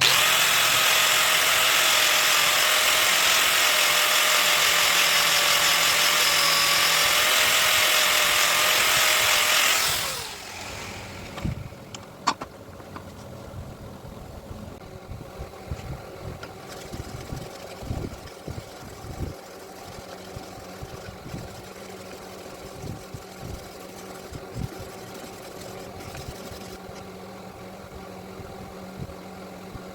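An abrasive sharpening machine grinds steel mincer parts with a loud, steady hiss over an even motor tone. About ten seconds in, the grinding stops and the motor winds down. A quieter steady hum follows, with scattered knocks and clinks and one sharp click.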